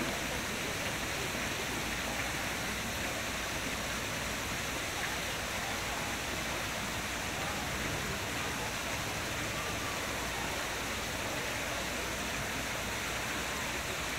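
Steady rush of running water, like a waterfall, at an even level throughout.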